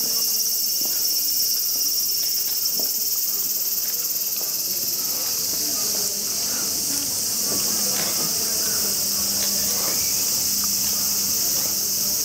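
A dense chorus of summer insects: a steady, high-pitched buzz, with faint scattered clicks beneath it.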